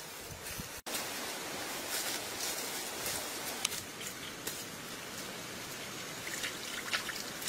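Steady hiss of a stream at the water's edge, broken by scattered light clicks and rustles. It cuts out for an instant about a second in, then comes back slightly louder.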